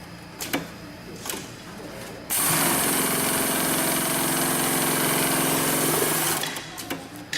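80700C1H heavy-duty FIBC bulk-bag sewing machine running steadily for about four seconds, starting and stopping abruptly, with a few sharp clicks before and after the run.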